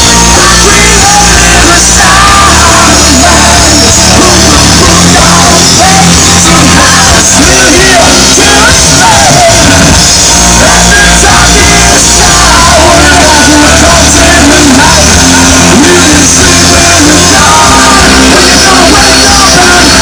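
Rock band playing live, electric guitar and vocals, very loud and continuous, heard from within the crowd near the stage.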